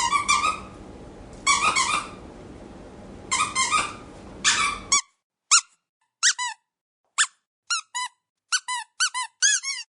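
Squeaky dog toy squeezed again and again: short high squeaks, each rising and falling in pitch. Four clusters of squeaks sound over faint room background in the first half. About halfway through the background cuts out and clean single and paired squeaks follow, coming faster near the end.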